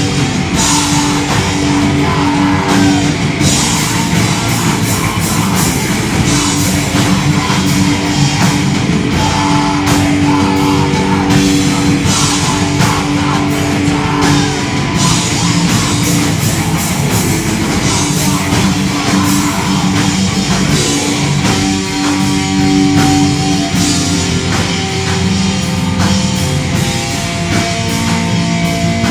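Live black metal band playing: distorted electric guitars holding long notes over bass guitar and a drum kit with cymbals, loud and steady.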